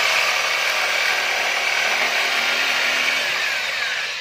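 Electric jigsaw cutting an opening in a wooden board, running steadily at full speed.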